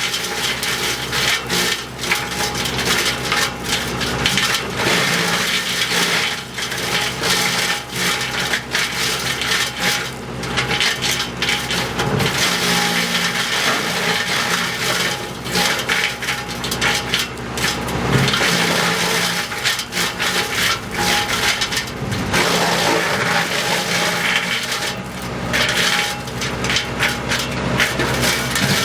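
WC42 wood chipper running and chipping branches: a dense, irregular crackling and crunching of wood over the machine's steady running note.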